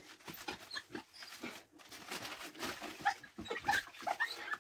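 Crumpled newspaper rubbed hard on window glass in quick strokes, rustling and crackling with short squeaks against the pane.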